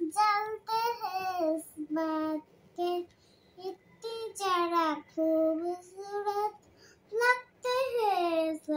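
A young girl singing a song without accompaniment, in short phrases with brief pauses between them.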